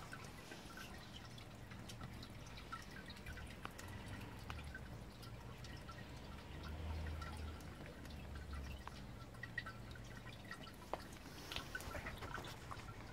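Water dripping and trickling from a mirror-polished sphere water feature into its basin, many small scattered drips.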